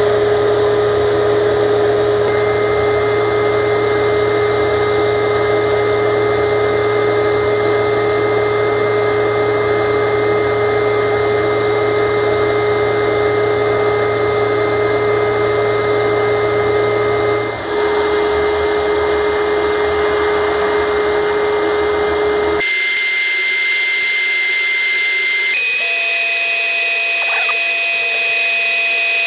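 Sandblast cabinet in use: the blast gun hissing steadily as abrasive strips paint from a small pressed-steel toy part, over a steady machine drone. It dips briefly about two-thirds in, and about three-quarters in the low drone drops away, leaving a thinner hiss.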